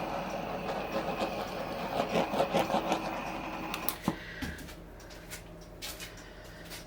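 Handheld butane torch flame hissing as it is passed over wet acrylic pour paint to pop air bubbles. It is shut off with a click about four seconds in, followed by a few faint taps.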